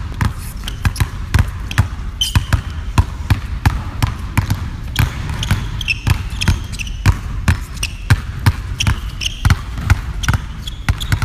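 Two basketballs dribbled hard on a hardwood gym floor in a two-ball dribbling drill, a steady run of bounces about three a second.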